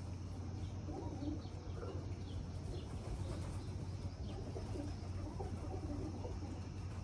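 Rock pigeons cooing repeatedly while feeding on scattered millet, with a few faint chirps from small birds.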